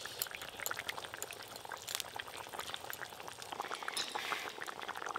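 Fish curry bubbling at a boil in a metal pot, a steady stream of small pops and gurgles.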